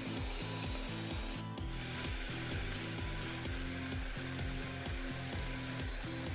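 N-scale model train running on track, a steady sizzling rattle of wheels and motor. Background music with low held notes changing every half second or so plays under it.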